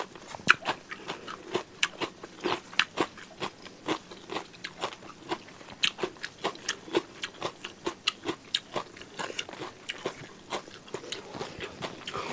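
A person chewing a mouthful of food with crisp crunches, about three a second, steady throughout.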